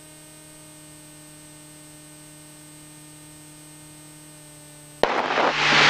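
Aircraft intercom audio between transmissions: a steady hum made of several constant tones. About five seconds in, a loud burst of static-like rushing noise breaks in.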